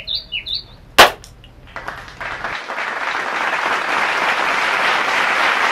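A few short bird chirps at the start, a single sharp click about a second in, then crowd applause that swells up over about a second and holds steady.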